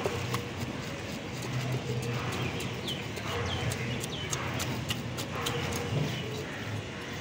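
A large knife scraping scales off a fish against a wooden chopping block: a run of short, sharp scraping clicks, over a steady low background noise.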